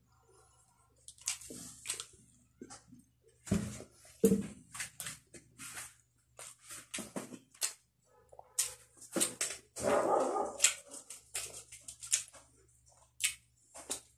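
Close-miked eating sounds: lip smacks, wet mouth clicks and chewing of grilled tanigue (Spanish mackerel) and rice eaten by hand. Two louder sounds stand out, one about four seconds in and a longer, denser one about ten seconds in.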